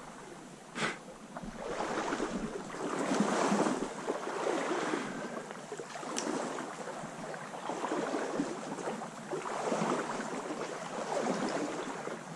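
Water swishing and splashing around the legs with each stride of someone wading down a shallow trout stream, swelling and fading about once a second, with a short knock just under a second in.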